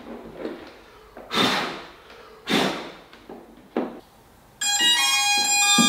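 A few handling knocks and clicks as connectors are plugged in, then, about four and a half seconds in, a loud chorus of electronic beeps from the eight drone-motor ESCs powering up, several tones sounding together and stepping in pitch.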